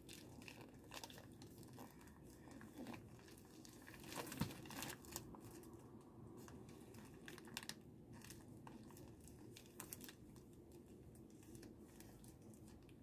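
Faint crinkling and rustling of a plastic mailer envelope being handled, with scattered soft clicks, a little louder about four seconds in.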